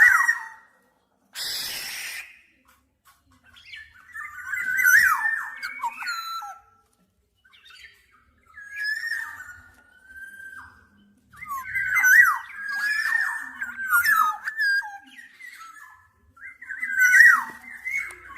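Black-naped oriole singing: fluty, gliding whistled phrases repeated with short pauses between them. A short harsh, noisy burst comes about a second and a half in.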